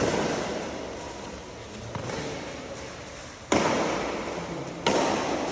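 Badminton rackets striking the shuttlecock in a rally: sharp cracks about every second and a quarter, each ringing on in the echo of a large hall. The loudest two come near the end.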